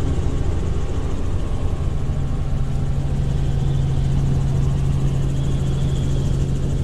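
Helicopter's engine and rotor running steadily in flight, heard from inside the cabin as a constant loud rumble with a low hum that grows stronger about two seconds in.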